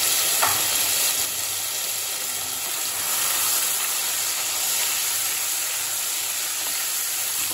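Fennel seeds and ginger-garlic paste sizzling in hot oil in a kadai, a steady even hiss.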